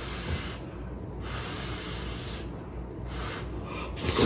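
A person blowing on a chopstick-load of hot instant cup ramen noodles in a couple of long breaths, then slurping the noodles in near the end; the slurp is the loudest sound.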